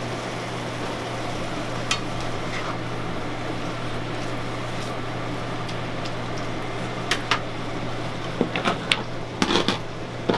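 Beef and vegetables cooking in a pan: a steady hum and hiss, with a few sharp clinks of a utensil against the pan, one about two seconds in and a cluster in the second half.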